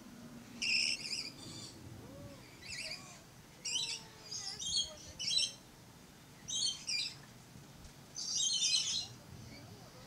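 Lorikeets calling: about seven short, high-pitched, grating calls at irregular intervals, the longest and loudest about eight seconds in.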